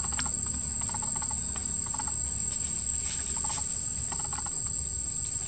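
Steady, high-pitched drone of insects, with short clusters of faint chirps about once a second.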